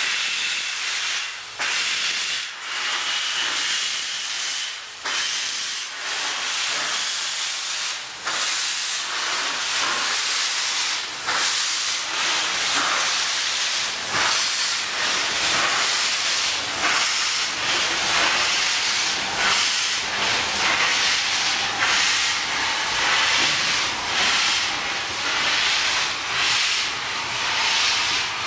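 Steam locomotive moving off, with a loud steady hiss of steam from its open cylinder drain cocks and regular exhaust beats that grow more distinct in the second half.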